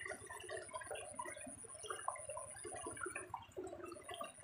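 Water splashing and sloshing in many small, irregular splashes.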